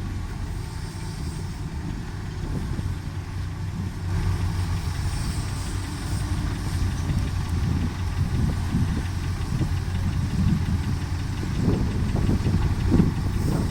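Diesel engine of a heavy earthmoving machine running steadily with a low drone. Some rougher, uneven bursts come in near the end.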